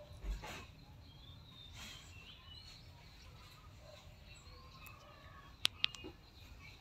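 Small birds chirping and twittering over a low steady rumble. There is a low thump just after the start, and two sharp clicks close together near the end are the loudest sounds.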